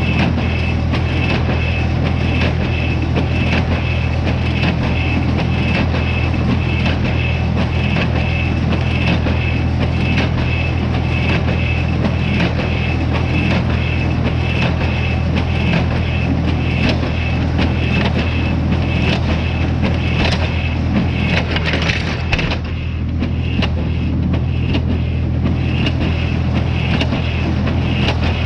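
Tractor engine running steadily as it drives a small square baler, the baler's plunger giving a regular, even knocking, over a steady high whine. The whine and upper noise drop away about two-thirds of the way through while the engine and knocking carry on.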